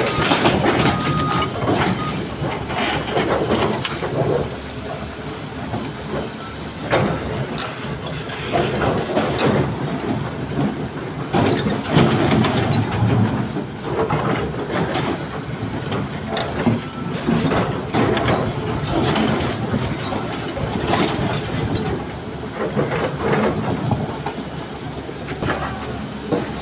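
Excavator engine running under load, with repeated clattering crashes as material is dropped into a tipper truck's steel body. A reversing beeper sounds briefly at the start.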